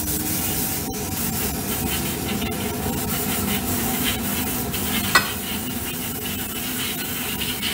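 Badger airbrush hissing steadily as it sprays coloured cocoa butter into a polycarbonate chocolate mould, with one brief click about five seconds in.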